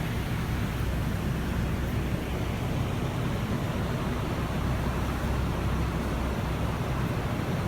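New Holland L220 skid steer's diesel engine running steadily at idle, heard from inside the cab as an even low rumble.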